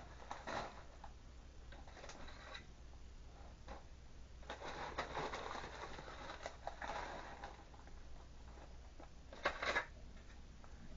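Quiet handling noises of the canister filter's plastic parts and packaging: light rustling and clattering, with a sharper clatter about nine and a half seconds in.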